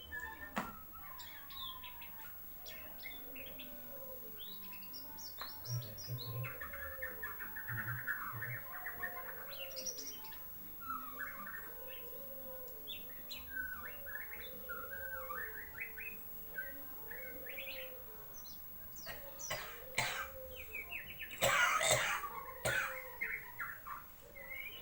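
A murai songbird singing in short chirps and warbled phrases, practising its song. It is joined by a repeated lower curved note and, near the end, a few loud sharp sounds.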